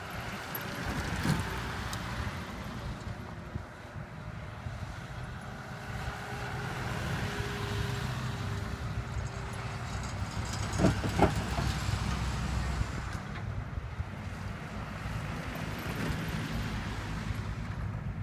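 Military Land Rovers and a canvas-backed army truck driving past on a gravel track: a steady low rumble of engines and tyres on gravel, with a couple of sharp knocks about eleven seconds in.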